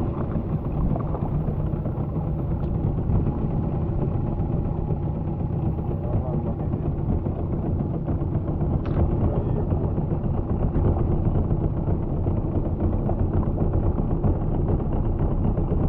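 Outboard motor of a small open fishing boat running steadily with a low drone.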